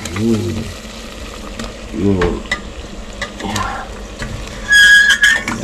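Crinkling and rustling of plastic bags and food packaging being handled, with scattered small clicks and two short hums. Near the end comes a brief high-pitched tone, the loudest sound.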